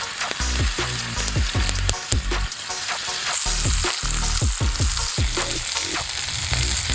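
Steaks sizzling in a cast-iron skillet over a campfire, a dense steady hiss that grows a little stronger about halfway through. Background music with a deep falling bass plays underneath.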